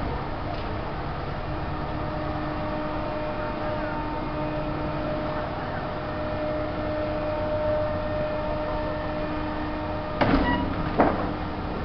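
A steady mechanical drone with a held hum, broken near the end by two loud knocks less than a second apart.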